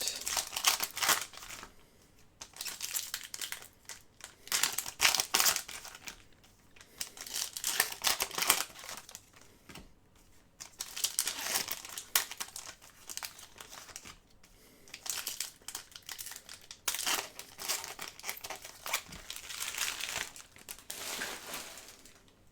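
Wrappers of trading-card packs being torn open and crinkled by hand, in about six rustling spells of a second or two each, with short pauses between them.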